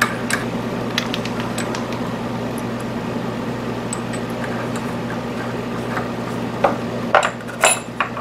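Metal clicks and clinks from a milling machine's drill chuck as a twist drill is fitted and the chuck is tightened. The clicks come sharpest and closest together near the end. A steady low electrical hum lies underneath.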